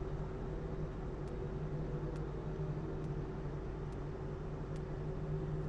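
Steady low hum with a faint hiss: room tone and background noise of a webcam microphone, with no speech.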